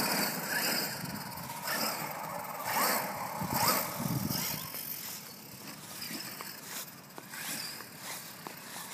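Brushless electric motor of a 1/10 Traxxas E-Revo RC monster truck whining in short spurts of throttle, the pitch rising and falling with each burst, over tyre and grit noise. It grows fainter in the second half as the truck drives farther off.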